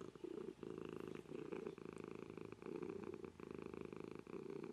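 A domestic cat purring steadily, the purr coming in repeated stretches with short breaks between them.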